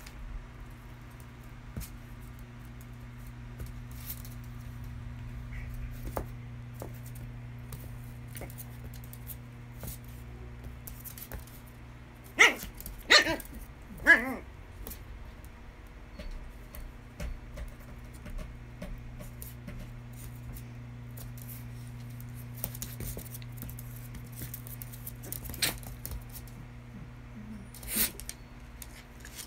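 Two small dogs play-fighting on a hard floor, with light scuffles and claw clicks and three short, loud barks in quick succession about halfway through, then a couple of softer ones near the end.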